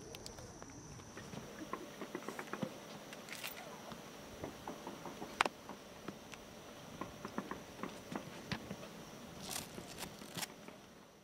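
Faint handling noise from pressing down a flexible thin-film solar laminate with a non-metallic hand roller and hands: scattered light clicks and taps, with one sharper click about halfway through. A faint high steady whine runs underneath.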